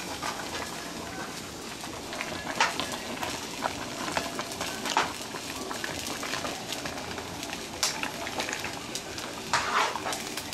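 A spoon stirring a large pot of simmering soup: a steady sizzling hiss from the pot, with a few sharp knocks of the spoon against the pot.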